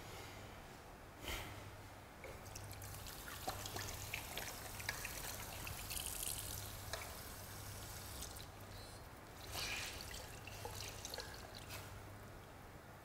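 Water trickling and splashing, with small scattered clicks of handling, over a low steady hum.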